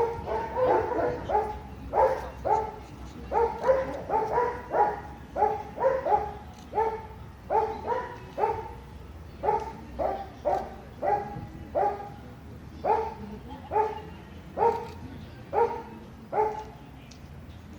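A dog barking over and over, about two barks a second, falling quiet near the end.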